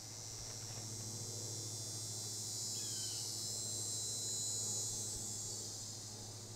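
High-pitched insect chorus, swelling through the middle and easing off near the end, over a steady low hum.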